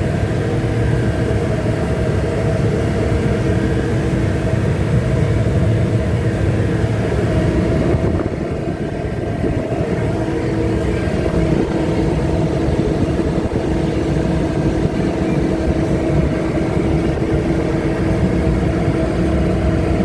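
Ship's engine running with a steady low rumble and a constant hum, dipping slightly in level about eight seconds in.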